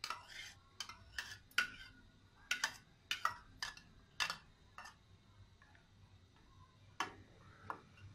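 A steel ladle clinking and scraping against a bowl as it is scraped out over a pot, about a dozen sharp clicks in the first five seconds, then two more knocks near the end as the ladle stirs in the steel pot.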